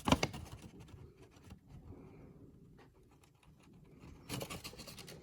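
A sharp knock right at the start, then scattered soft clicks and light scraping, with a short rustling stretch about four seconds in.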